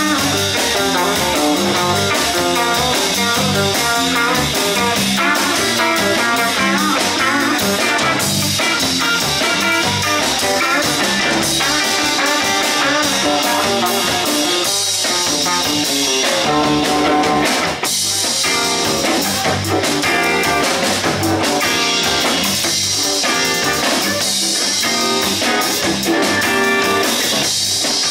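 Live rock band playing an instrumental passage: electric guitars over a drum kit.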